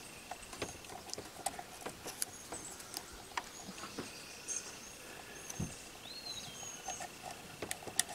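Faint small clicks and scratches of fingers handling a screw, washer and plastic parts on a GoPro Karma drone arm, with a few high bird chirps in the background.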